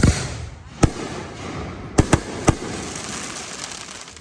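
Aerial fireworks bursting overhead: about five sharp bangs, three of them close together in the middle, over a steady hissing crackle that trails off into scattered small crackles near the end.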